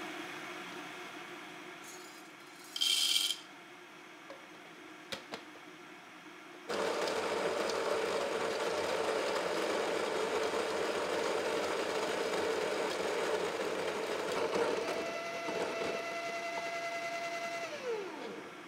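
Baratza Virtuoso+ conical burr grinder grinding coffee beans for about eleven seconds, starting a third of the way in. In its last few seconds a steady whine comes through, then the motor winds down with a falling pitch and stops. Before it there is a short loud burst about three seconds in and a couple of faint clicks.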